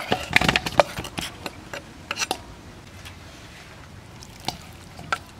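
Cut eel pieces scraped off a wooden cutting board into a stainless-steel basin: sharp knocks and clatters of wood and wet pieces against the metal. They come thickest in the first second or so, again at about two seconds, and a few more near the end.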